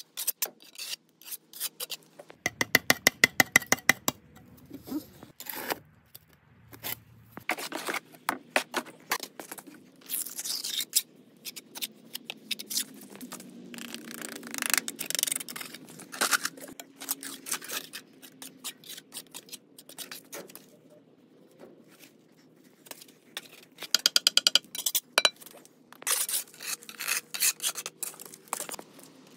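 Steel trowel scraping and spreading wet mortar on concrete blocks and on a mortar board, in irregular strokes. Twice, a short, loud run of rapid clicks cuts in.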